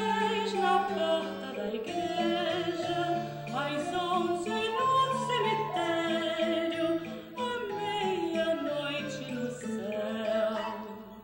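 Vocal music: singing voices with a wavering vibrato over held low notes.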